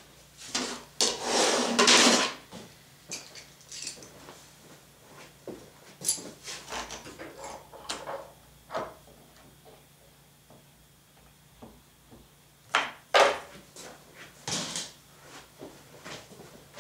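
Handling noise on a plywood sheet: a wooden strip scraped across the birch plywood, then a series of sharp knocks and clicks as a clamp is set against the table's edge.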